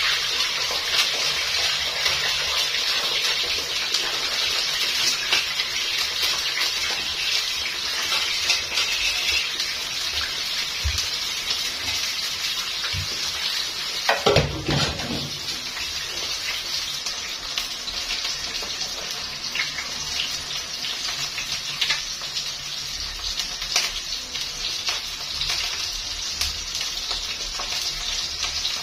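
Fresh-cut potato chips deep-frying in hot oil in a wok: a steady sizzling hiss full of small crackles, strongest at first and easing a little. About halfway through comes a single clunk.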